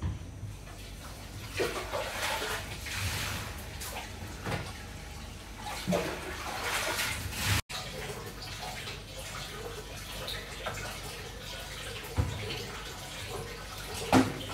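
Water running and sloshing in a twin-tub washing machine, with a few sharp knocks as the machine's top is handled, the loudest near the end.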